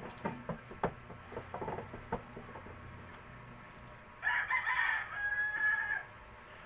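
A rooster crowing once, a long call of about two seconds starting about four seconds in, after a few scattered clicks and knocks.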